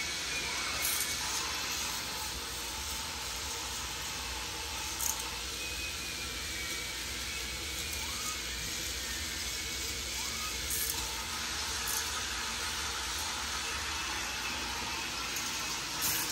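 Small electric motors of motorised K'NEX toy rides and coaster lifts running together as a steady whir, with a few light plastic clicks scattered through.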